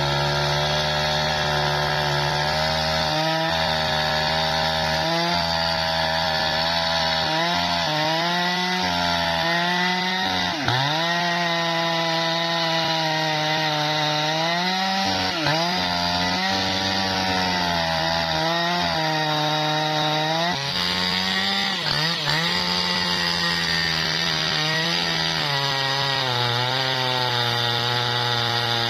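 Jonsered chainsaw running at high revs while cutting through a bendo log. The engine pitch dips several times, most sharply about a third, half and three quarters of the way through, and climbs back each time: the engine bogging down under load in the tough, fibrous wood and recovering.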